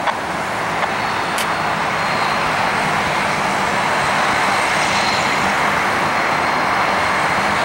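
Rolls-Royce AE 3007 turbofan engines of an Embraer ERJ-145 regional jet at takeoff power during its takeoff roll. A steady rushing engine noise grows slightly louder, with a thin high whine above it.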